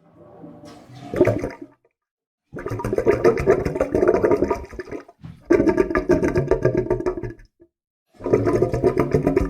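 Water gurgling and bubbling in separate bursts: a short one that builds for about a second and a half, then three longer ones of about two seconds each, each cut off abruptly with silence between.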